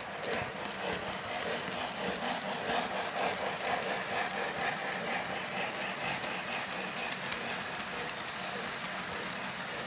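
Two O-gauge model trains running at the same time, a steady rolling clatter of wheels on three-rail track with the hum of the engines.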